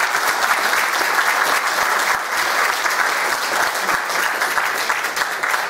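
Congregation applauding: dense, steady clapping that eases slightly near the end.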